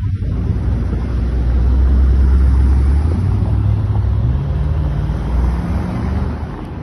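Mercedes-Benz convertibles driving past close by at low speed, engines running with a low drone. One engine revs up about four seconds in as a car pulls away.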